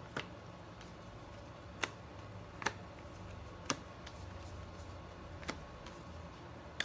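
Cardboard trading cards being dealt off a hand-held stack one at a time, each giving a short, sharp click as it is slid off and set down, about six at uneven intervals over a faint steady room hum.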